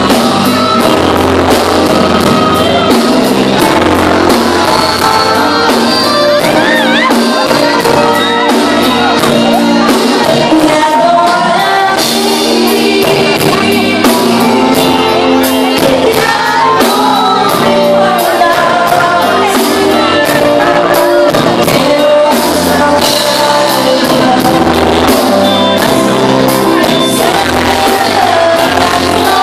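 Live Tejano band playing loud with a woman singing into a microphone over a steady drum beat, with shouting in the hall.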